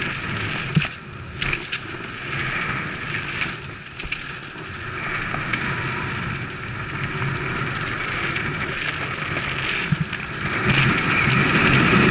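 Bicycle being ridden along a dirt trail: steady tyre noise with knocks and rattles from the bike, a few sharp knocks in the first couple of seconds and again near the end, when the noise grows louder.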